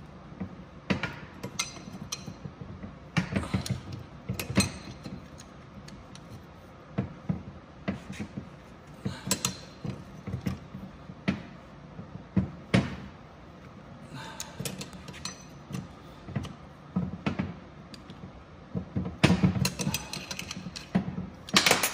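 Ratcheting box-end wrench clicking on an alternator's pulley nut while a hex key holds the shaft, with metal tools clinking against the pulley in irregular spells. The loudest, densest run of clicks comes near the end.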